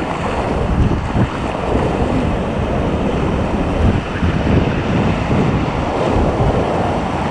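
River water rushing and splashing around a whitewater raft as it is paddled downstream, with wind buffeting the action-camera microphone.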